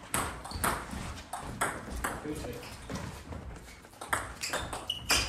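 Table tennis ball clicking sharply off the bats and the table, a quick run of clicks about two a second that come closer together near the end.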